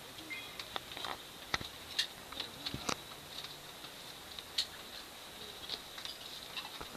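Scattered light clicks and knocks, a handful of them irregularly spaced, over a faint steady high-pitched whine.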